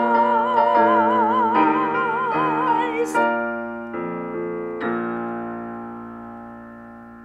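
Yamaha digital piano ending a song: a singer's final high note held with vibrato for about three seconds over the piano, then closing piano chords that ring and slowly fade.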